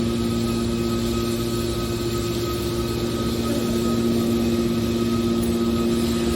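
Hydraulic metal baler's power unit (electric motor and hydraulic pump) running with a steady hum.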